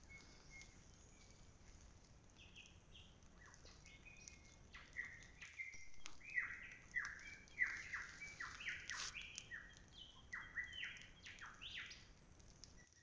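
Birds calling: a quick run of short, downward-sweeping chirps starting about five seconds in and lasting until near the end, with a few fainter chirps before.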